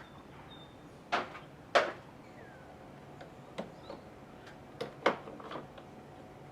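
A few sharp clicks and knocks, like hard parts being handled: two loud ones just over a second apart, then smaller ones and a quick double knock near the end, over a faint steady hum.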